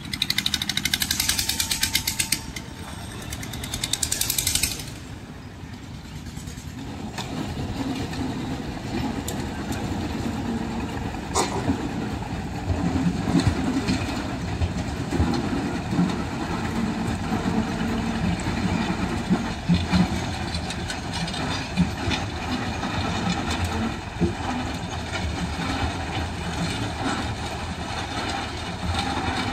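Road roller's diesel engine running at low speed as the machine crawls across a railway level crossing, with a sharp knock about eleven seconds in. In the first five seconds a loud, high, rapid buzz sounds twice.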